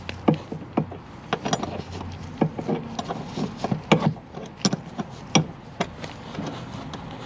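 A wrench tightening a seat-bracket bolt to the car floor: a series of sharp, irregular metal clicks and knocks, one or two a second, as the handle is swung and reset.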